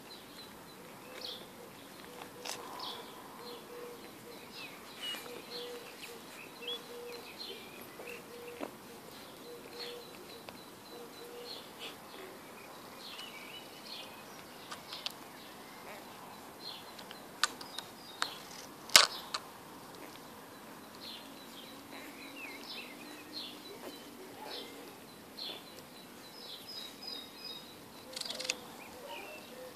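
Small birds chirping faintly and on and off, in many short high calls. A few sharp clicks come about two-thirds of the way through.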